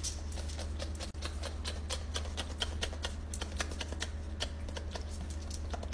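A dog chewing and smacking on a piece of steak: a run of short, wet clicks several times a second, over a steady low hum.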